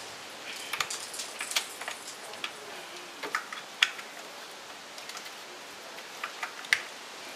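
Scattered light clicks and taps of engine parts being handled and fitted by hand, with two sharper taps about four seconds and nearly seven seconds in, over a steady hiss.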